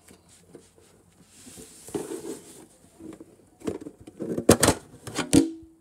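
A metal trading-card collector tin being handled and opened: a soft scraping and rustling, then several sharp clicks and knocks of the metal lid, the loudest about four and a half seconds in, one ringing briefly.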